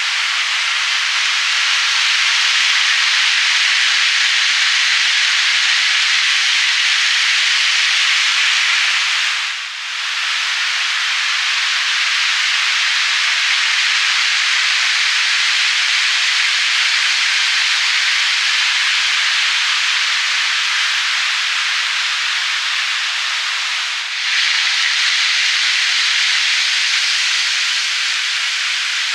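N gauge model Shinkansen train running on plastic elevated viaduct track: a steady rushing hiss of wheels and motor, dipping briefly about ten seconds in and again near the end.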